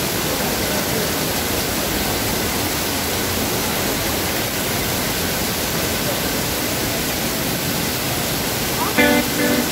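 Steady rushing of a canyon waterfall, an even wash of falling water. Near the end an acoustic guitar chord is strummed over it.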